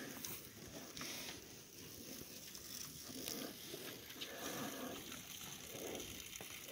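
Faint sounds of a small herd of cattle milling around close by in a grass pasture, over a steady hiss, with a few soft clicks and low swells.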